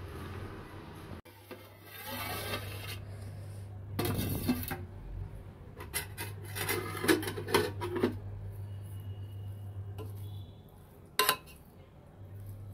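A metal spoon scraping and clinking in a metal pot as cooked biryani rice is turned and scooped, with a cluster of sharp clinks a little past the middle and one more near the end.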